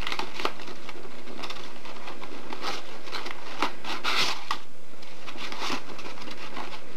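Wrapping paper being torn and crumpled off a present: a string of irregular rustling rips, the loudest about four seconds in.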